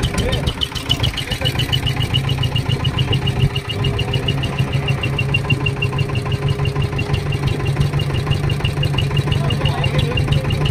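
Fishing boat's engine idling steadily, with a fast, even, high ticking about five times a second over its low hum.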